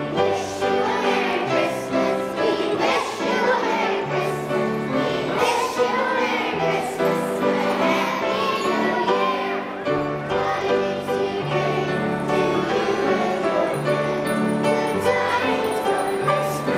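Young children singing a Christmas carol together, over instrumental accompaniment that holds low notes beneath the voices.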